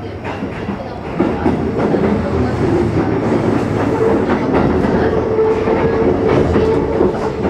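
Sanyo Electric Railway 6000 series electric train running at speed, heard from inside a trailer car: a steady rumble of wheels on rail with clacks over the rail joints and a steady hum. It gets louder about a second in.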